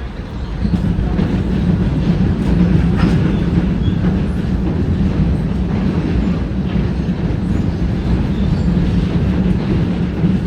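A train passing on the rails, with loud, steady wheel-and-rail noise that swells about half a second in.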